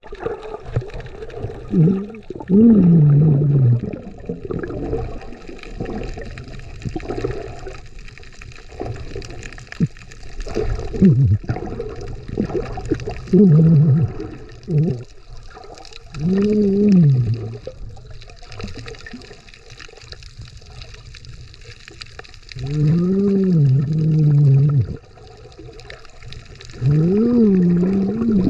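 Water noise heard through a submerged camera: sloshing and bubbling, with about six muffled, rising-and-falling vocal sounds from a snorkeler's voice through the snorkel, each lasting a second or two.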